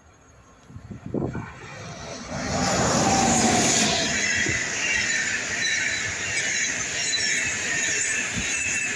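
Locomotive-hauled passenger train passing close by at speed: the noise swells over the first couple of seconds as the locomotive arrives, then a steady loud rush of wheels on rail as the coaches roll past, with high squealing tones over it.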